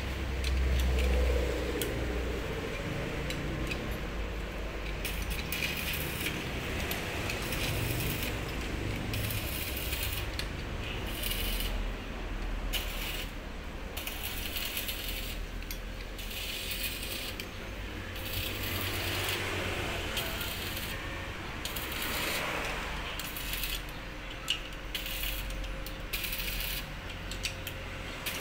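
Electric arc welding on a bus exhaust pipe: the arc crackles and sputters in irregular stretches, with brief lulls between.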